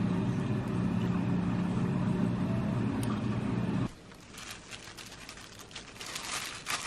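A steady low hum that cuts off abruptly about four seconds in. After it, disposable plastic food-prep gloves crinkle softly as hands press rice onto a sheet of seaweed.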